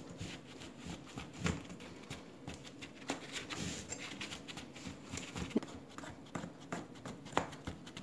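Crushed-biscuit cheesecake base being pressed down and levelled in a round pan with a flat tool: scattered light taps and crumbly scraping.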